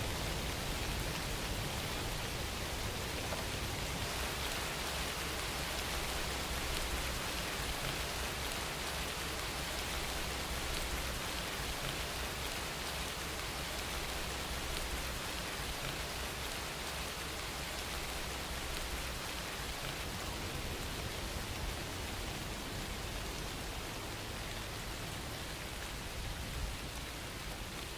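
Steady rain falling and pattering on surfaces, an even wash of noise with a low rumble underneath.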